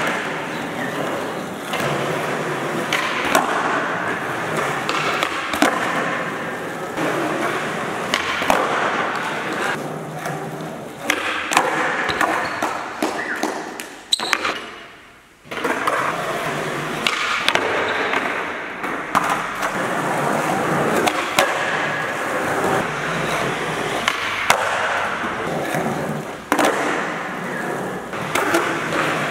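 Skateboard rolling on a smooth indoor gym floor, with repeated sharp clacks of tail pops and board landings from flatground tricks. The sound briefly drops away about halfway through.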